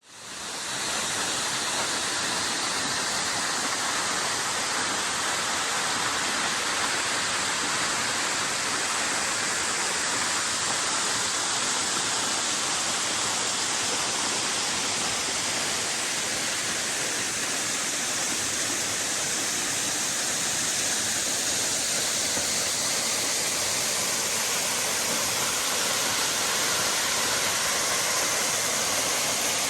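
Waterfall rushing with a steady roar of falling water, fading in over the first second.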